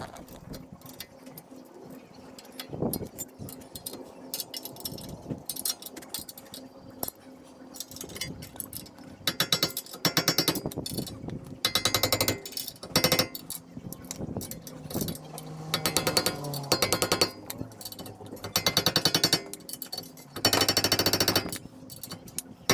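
Impact wrench running the mounting bolts of a new wheel bearing and hub assembly down tight, in several short bursts of rapid hammering in the second half.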